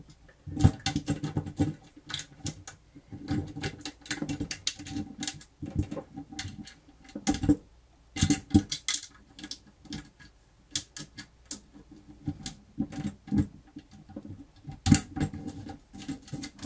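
Irregular small clicks, taps and rattles of screws, tools and metal parts being handled on a workbench, with a light metallic ring on some of the knocks.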